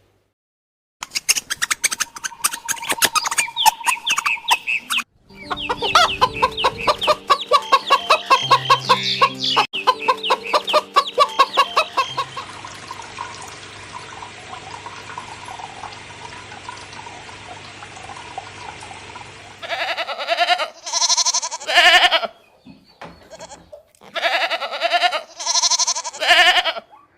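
Animal calls: a run of quick, repeated calls for the first dozen seconds, a quieter stretch, then a few loud, drawn-out cries near the end.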